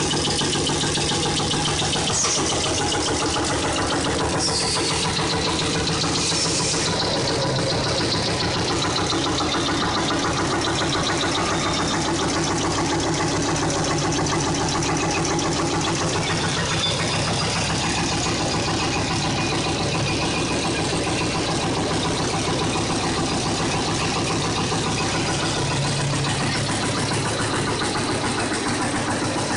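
A PVC profile extrusion line running: a steady machinery drone from its motors and drives, with a few constant hum tones and no change in level.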